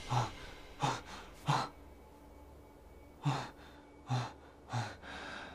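A man breathing hard in short gasps: three in quick succession, a pause of about a second and a half, then three more. He is panting on waking from a nightmare.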